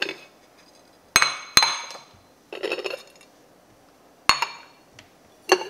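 Ceramic plates used as lids knocking and clinking against ceramic bowls as they are lifted off and set down. There are two sharp ringing clinks about a second in, a short rougher rattle of crockery near the middle, and two more clinks near the end.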